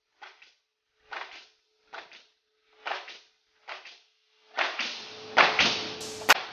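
Pneumatic coil nailers on a robot arm's nailing head firing nails into wooden pallet boards: a short hiss-and-bang about once a second. Near the end comes a longer, louder stretch of air with several heavier shots.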